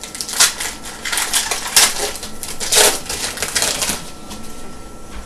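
Trading card pack wrapper being torn open and crinkled by hand, in irregular crackling bursts that die down near the end.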